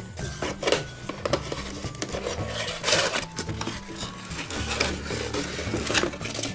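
Packing paper crinkling and a cardboard box rustling as a cast-iron loaf pan is unpacked, with a few light knocks of the pan against the box.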